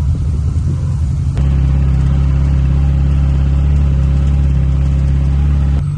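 Engine running steadily. About a second and a half in it abruptly gets louder and deeper, then changes back just before the end.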